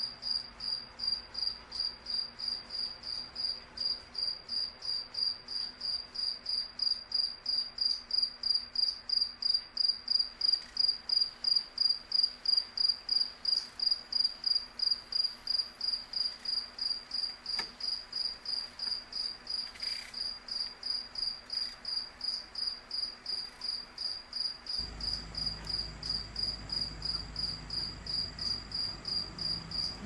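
A cricket chirping steadily: a high, even chirp repeated about three times a second.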